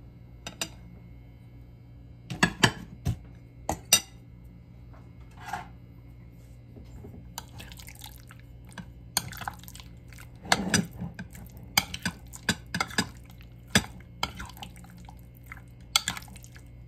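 Metal spoon clinking and scraping against a ceramic bowl as raw fish strips are stirred through melted butter. A few separate knocks at first, then a busier run of clinks and scrapes from about halfway through.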